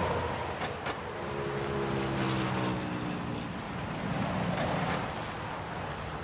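A motor vehicle passing over steady outdoor traffic noise, its engine note falling in pitch over a couple of seconds; a broom scrapes across wet, slushy pavement a few times.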